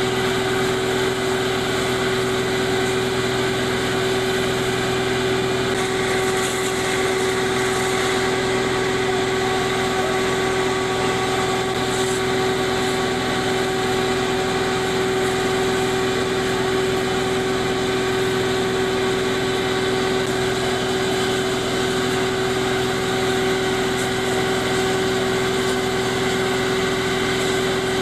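An engine running steadily at constant speed, giving an unchanging hum.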